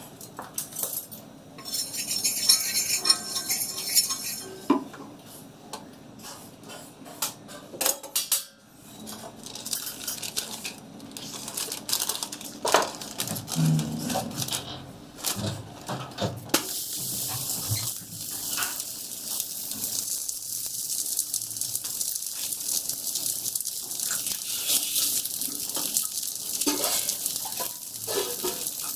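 Knocks and clinks against a pan in the first half, then, from a little past halfway, a steady sizzle with occasional pops as a thalipeeth (multigrain flatbread) cooks on a hot, oiled tawa.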